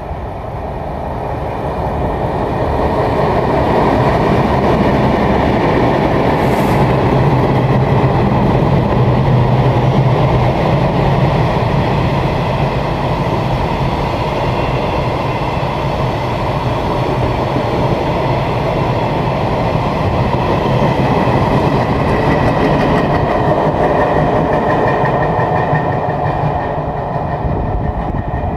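Freight train hauled by two diesel locomotives passing through a station without stopping: the locomotives' diesel engines hum loudly a few seconds in as they go by, then a long string of freight wagons rumbles and clatters over the rails, easing off near the end as the caboose draws away.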